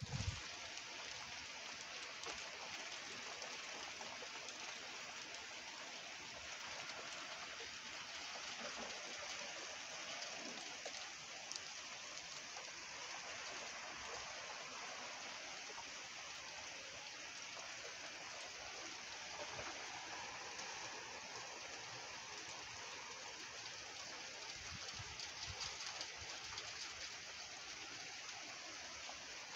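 Small hail falling steadily, a constant hiss with a few faint ticks. A brief bump right at the start.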